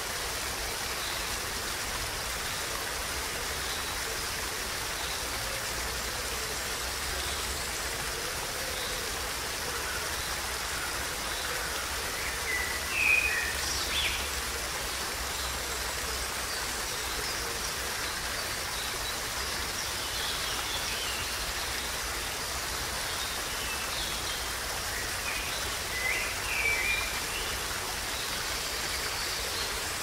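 A small stream cascading over rocks: a steady, even rush and splash of falling water. Short bird chirps come through twice, about halfway through and again near the end.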